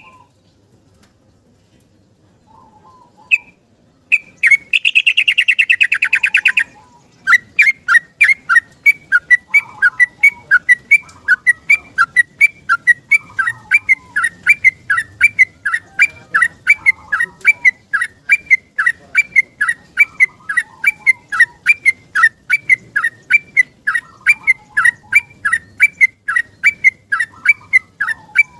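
Yellow-vented bulbul (trucukan) singing. After a short note comes a fast rolling trill lasting about two seconds. Then a long run of sharp, repeated chirping notes follows, about two to three a second, with softer lower warbles between them.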